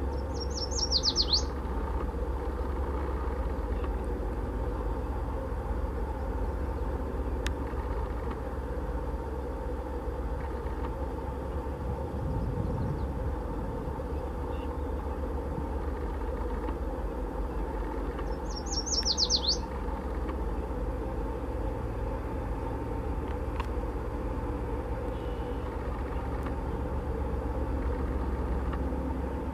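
A small bird twice gives a short, quick trill of falling notes, about a second in and again near the middle. Under it runs the steady low rumble of an Airbus A321's jet engines at taxi power.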